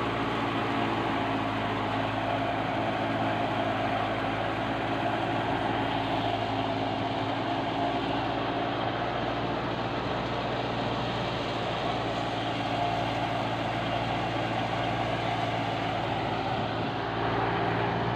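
Tractor-driven wheat thresher running steadily under load as wheat stalks are fed into it: the tractor engine and the threshing drum make an even, unbroken drone.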